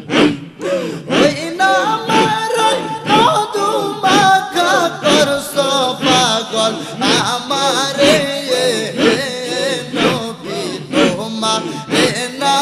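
Bengali devotional zikir song: male voices singing a drawn-out melodic line over a steady, evenly spaced beat, with the melody entering about a second and a half in.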